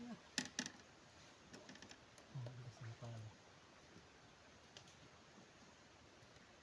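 Near silence, with two sharp clicks about half a second in and a faint low murmur of voices a couple of seconds later.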